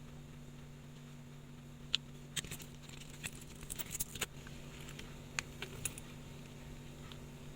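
Light, sharp clicks and taps of small hand tools on a wristwatch's parts, scattered in clusters from about two to six seconds in, over a steady low hum.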